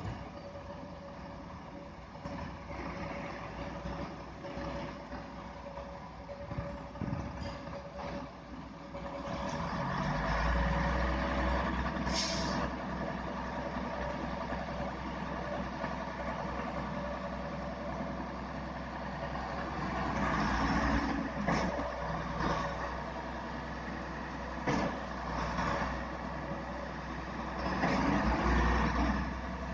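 Heavy diesel concrete truck engine running, growing heavier and louder about ten seconds in and holding there. A brief hiss of air comes about twelve seconds in.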